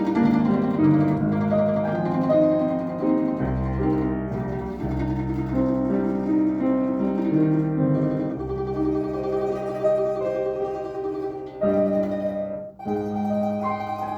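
Classical instrumental music: a duo with piano accompaniment playing a lyrical piece, with held melodic notes over plucked-sounding chords. The music thins out briefly for a short break between phrases near the end.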